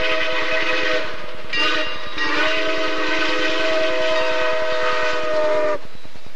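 Steam chime whistle of ATSF 3751, a 1927 Baldwin 4-8-4 steam locomotive, sounding several notes at once as the engine passes at speed. A long blast ends about a second in, a short blast follows, then one long blast that cuts off near the end.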